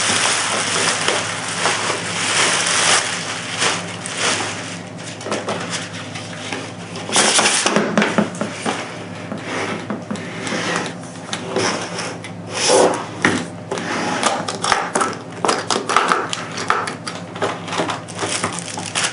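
Handling noise from unpacking a spotting scope's hard carrying case: a run of irregular clicks, knocks and rustling, with a louder rustling burst partway through.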